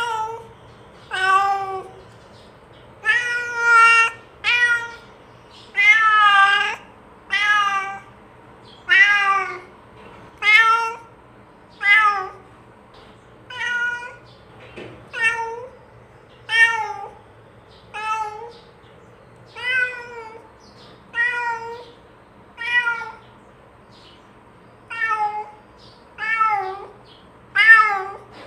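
A domestic cat meowing over and over, about twenty drawn-out meows spaced roughly a second or so apart, each bending in pitch.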